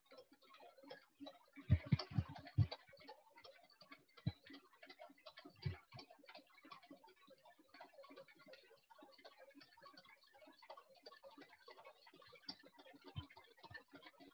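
Lathe turning a metal bar under automatic carriage feed, the lead screw driving the carriage through the engaged half nut: faint, rapid, irregular crackling clicks of the cut. A cluster of louder knocks comes about two seconds in, with single knocks later.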